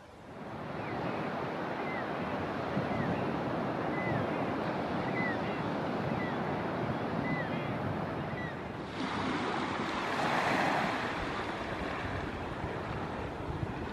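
Surf washing onto a sandy beach with wind on the microphone; the rush grows louder and brighter about nine seconds in. Over the first half a bird repeats a short, arched chirp about once or twice a second.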